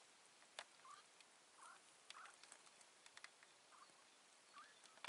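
Faint chukar partridge calls: about six short rising chirps, spread roughly a second apart, with a few faint clicks.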